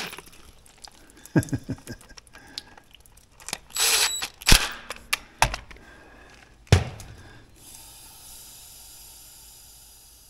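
Scattered knocks and clanks of metal tools and parts being handled, the loudest about four and a half and six and a half seconds in. A faint steady hiss sets in about seven and a half seconds in.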